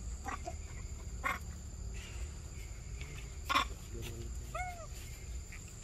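Pig-tailed macaques giving short, sharp calls, the loudest about three and a half seconds in. It is followed by a single brief rising-and-falling squeak, with a steady high whine underneath.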